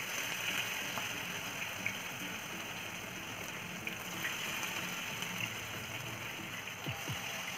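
Shallow oil sizzling steadily as masala-coated fish pieces fry in a frying pan on a low flame, with a few faint scattered pops.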